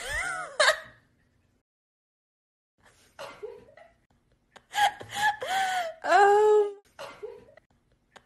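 A person laughing in high-pitched giggles, in short bursts: a burst at the start, then more from about three seconds in.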